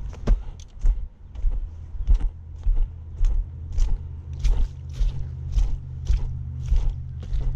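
Footsteps of a person walking in boots along a muddy, leaf-strewn path, about two steps a second, each step a thump with a crunch of dry leaves.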